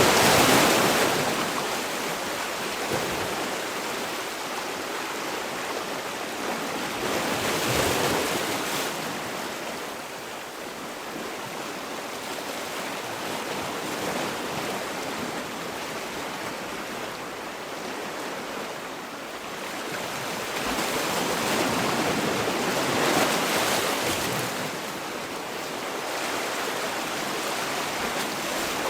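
Sea waves breaking and washing ashore, a steady wash of surf that swells with a new breaker every several seconds and then ebbs.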